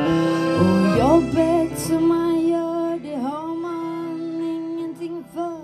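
Live band music: a woman sings long held notes that dip and slide back up, over guitar and accordion accompaniment.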